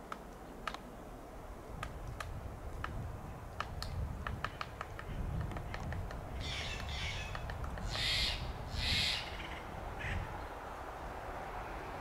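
Steller's jay giving a series of harsh, grating calls, about five in all, starting some six seconds in, with a few faint sharp ticks scattered before them.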